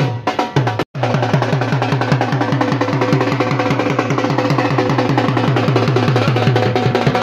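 Dhol drum beaten in a fast, even rhythm of about seven strokes a second. The sound cuts out for an instant about a second in, then the drumming carries on.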